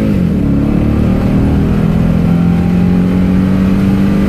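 Toyota Tundra's engine at full throttle on a freshly flashed DAP tune, heard from inside the cab. The revs drop sharply at an automatic upshift right at the start, then climb steadily again as the truck keeps accelerating hard.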